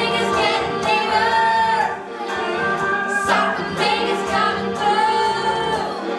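A children's choir singing a musical-theatre number, with several notes held for about a second.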